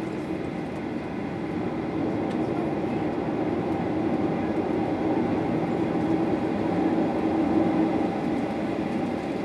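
Steady cabin rumble inside a Boeing 737-800 on the ground before takeoff, its CFM56-7B engines running at low power, growing slightly louder about two seconds in.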